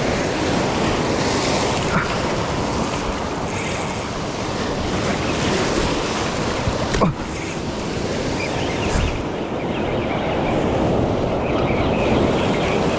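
Surf breaking and washing over a rocky cobble shore, with wind buffeting the microphone. A single sharp click comes about seven seconds in.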